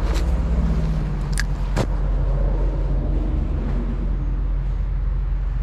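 Steady low rumble of road traffic, with a few sharp clicks in the first two seconds.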